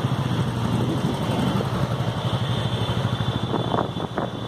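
Several motorcycle and scooter engines running together as they ride past, a steady low engine drone with fast firing pulses. A few short, sharper sounds come near the end.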